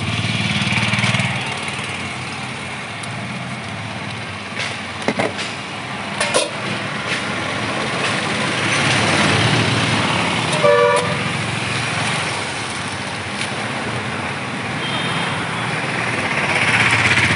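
Passing road traffic, a steady rush of noise that swells and fades as vehicles go by, with a short vehicle horn toot about eleven seconds in. A few short knocks sound around five to six seconds in.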